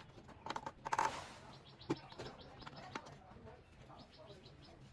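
Faint handling noises as a Yamaha RX100's side cover is pressed by hand onto the frame: a short rustle about a second in, then a few soft knocks and clicks.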